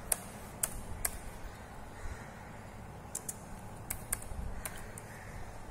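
Computer keyboard keys being typed on: sharp single clicks at uneven intervals, with a faint low hum underneath.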